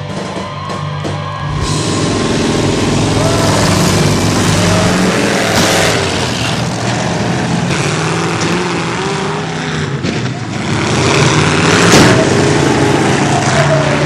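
Demolition derby cars with engines running and revving, and a loud crash of metal hitting metal near the end, over music that is still playing. A short stretch of music with drum hits comes first.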